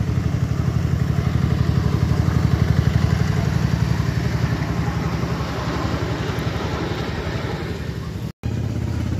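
Small engine of a ride-on miniature locomotive running steadily with a rapid, even pulsing beat as it hauls passenger cars. The sound cuts out completely for an instant near the end.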